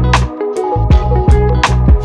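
Background music with a steady beat: drums and a bass line.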